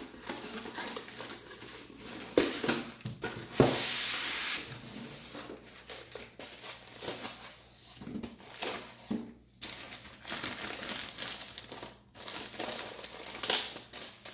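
Cardboard packaging and a plastic bag being handled: irregular rustling and scraping of box flaps and foam, with a longer rustle about four seconds in and louder plastic crinkling near the end as the wrapped unit is pulled out.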